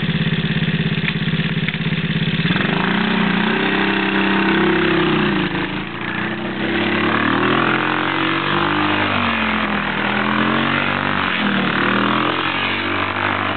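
Engine of a Chinese Panthera 110/125 children's quad (ATV) idling steadily, then revving up and down over and over from about two and a half seconds in as it is ridden in tight circles in the snow.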